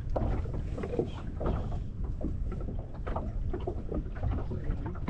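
Water sloshing and lapping against a small fishing boat's hull, with wind buffeting the microphone as a steady low rumble.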